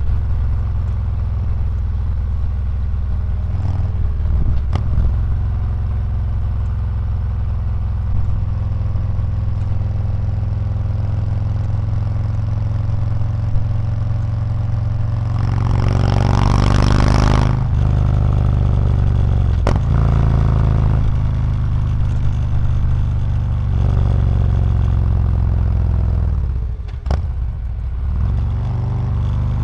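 Harley-Davidson Street Glide Special's Milwaukee-Eight V-twin running through Reinhart DBX45 exhaust while riding at a steady cruise. Past the middle the revs climb for about two seconds and then drop back; near the end the exhaust note dips briefly.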